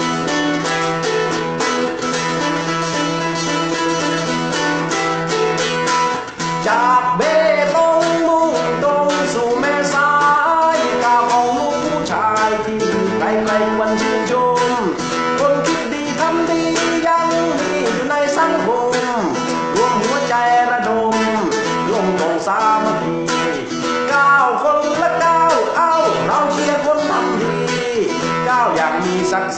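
A man sings a Thai song over his own strummed guitar. The guitar plays alone for about the first six seconds, then the voice comes in.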